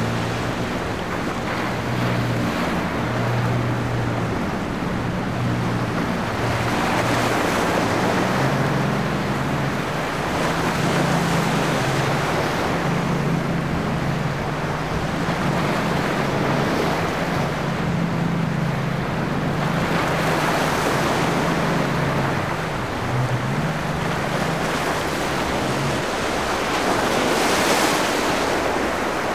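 Surf and breaking waves rushing around a powerboat's hull as it runs through rough inlet water, the wash swelling and easing every few seconds. Under it the boat's engines keep up a low drone, which drops away a few seconds before the end. Wind buffets the microphone.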